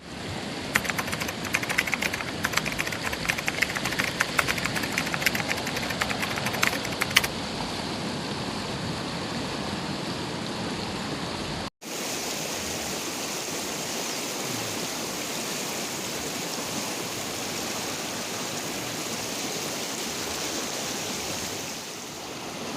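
Steady rushing water noise, with dense crackling for the first seven seconds and a brief break near the middle.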